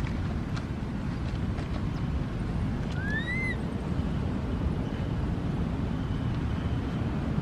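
Steady low rumble of wind on the microphone, with one short high call about three seconds in that rises and then falls.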